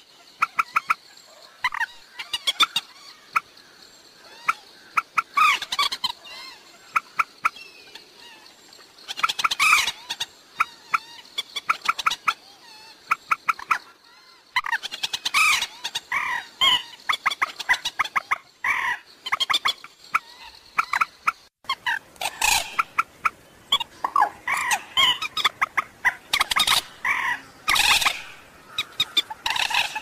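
Common moorhen calls: rapid runs of sharp clucking notes and chattering, in clusters broken by short pauses.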